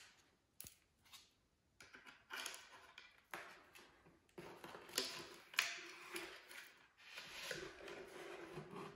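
Hands handling a foam model jet's fuselage and its servo wires and plastic plug connectors: quiet, irregular rubbing and scraping with a few small clicks, and a low drawn-out squeak of foam rubbing in the second half.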